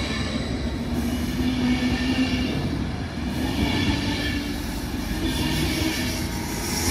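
Zurich S-Bahn double-deck electric train running slowly past along the platform: steady wheel-on-rail rumble with a whining hum that shifts a little in pitch.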